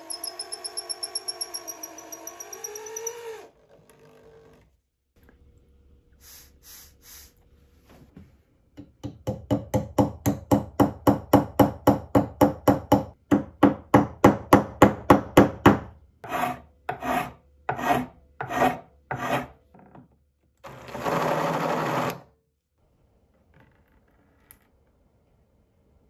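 A cordless drill whines briefly, rising in pitch. Then a hand tool scrapes the wooden handle in a long, even run of rasping strokes, about three to four a second, which slow toward the end. Near the end the drill runs again for about a second and a half, boring into the wood.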